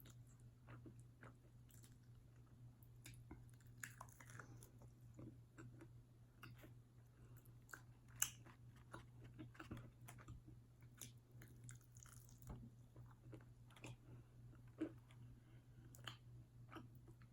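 Quiet, close-up chewing of fast food, with irregular small crunches and wet mouth clicks, over a faint steady low hum.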